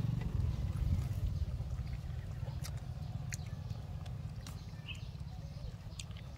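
Monkeys' fingers picking chopped fruit off a plastic plate, making a few light scattered clicks and taps over a steady low rumble.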